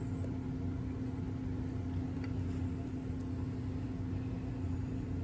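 Steady low hum of room background noise with a constant drone, and a couple of faint ticks.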